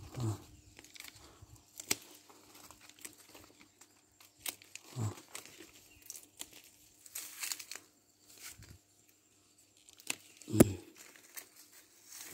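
Leaves of a water apple tree rustling and crinkling as a pair of hand pruning shears is worked among the branches, with scattered sharp clicks. A louder knock comes about ten and a half seconds in.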